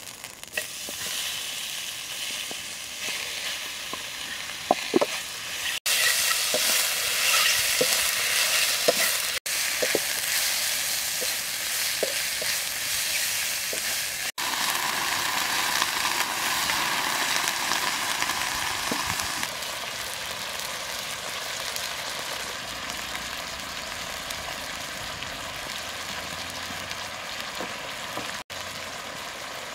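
Sliced mushrooms sizzling as they are stir-fried in a black wok over a wood fire, with the slotted spatula scraping and clicking against the pan in the first half. The sizzle goes on steadier and a little lower later on.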